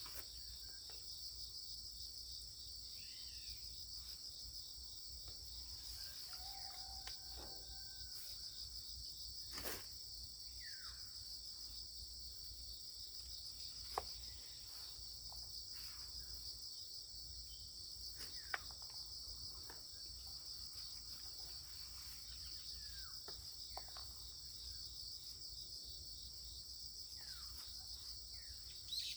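Insects chirring in a steady, high-pitched chorus, with a few short chirps and three sharp clicks scattered through.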